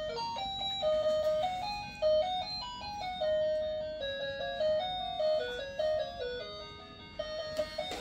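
Electronic jingle from a child's ride-on toy car: a simple melody of clean single beeping notes from its steering-wheel music button, stopping near the end.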